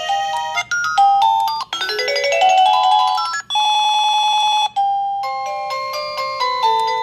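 Daytech wireless caregiver pager receiver playing its built-in electronic ringtone melodies one after another as the ringtones are cycled through. There is a rising run of beeping notes, then a fast warbling tone, then a stepped chime tune, with brief breaks between tunes.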